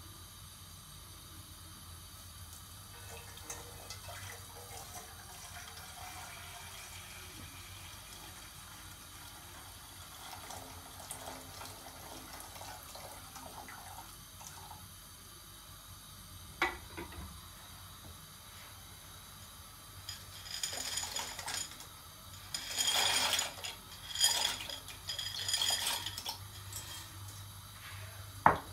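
Water poured from a glass jug into a cooking pot, with kitchenware clinking. A few louder clattering noises come and go in the last third.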